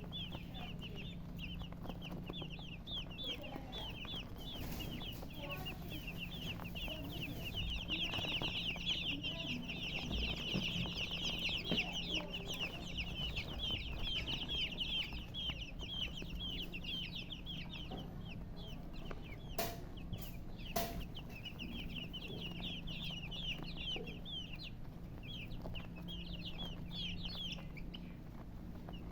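A brood of baby chicks peeping: many short, high, downward-sliding calls overlapping without pause, busiest in the middle stretch. A steady low hum runs underneath, and two sharp clicks come about two-thirds of the way through.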